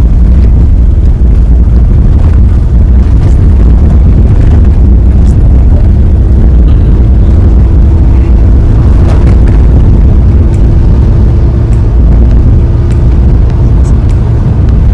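Steady low rumble of a car driving along a road, engine and tyre noise heard from inside the cabin, with a faint steady hum in the middle.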